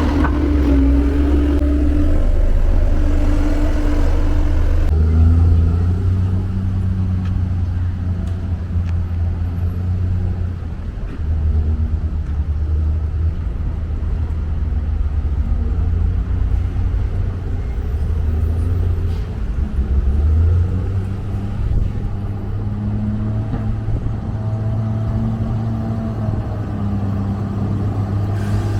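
Heavy diesel road-construction machinery running, a steady deep engine drone whose pitch and level shift a little now and then as it works.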